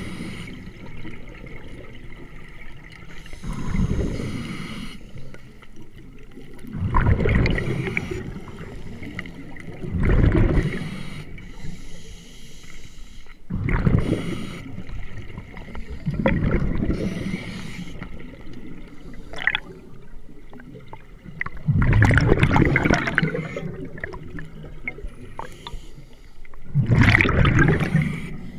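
Scuba regulator breathing underwater: about seven bubbling surges of exhaled air a few seconds apart, with a fainter hiss between them.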